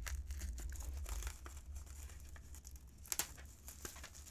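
Plastic shrink wrap being peeled off a cardboard tuck box and crinkled: a run of small crackles, with one louder crackle about three seconds in.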